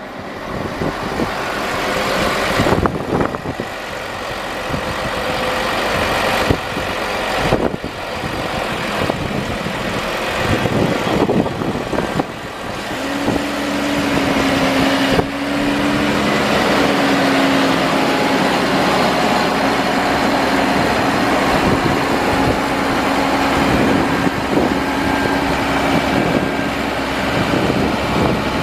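Diesel engine of a New Holland TV6070 tractor running while its hydraulic boom mower arm is worked; the sound builds over the first few seconds, and from about thirteen seconds in a steady hum joins it and holds.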